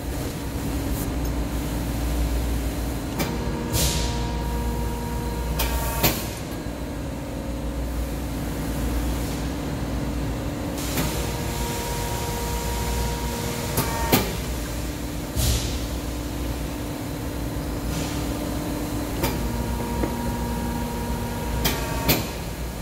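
Press brake running with a steady hum that shifts pitch and back three times as the ram cycles. Sharp metallic clanks and short hisses come as 11- and 10-gauge steel pieces are bent over a 3D-printed PLA die.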